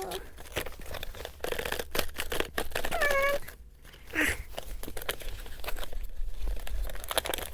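Packaging crinkling and tearing as it is pulled open by hand, a dense run of small crackles, with a brief pitched squeak about three seconds in.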